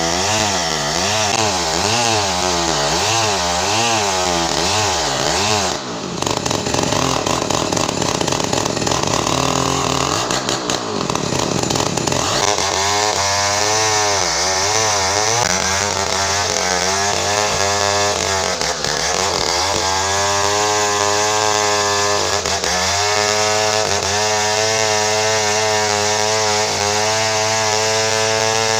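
Large two-stroke chainsaw, a locally assembled Stihl 070-type saw, running and cutting ironwood. Its engine speed rises and falls over and over, quickly for the first few seconds and in slower swings later, as it bogs and recovers in the cut.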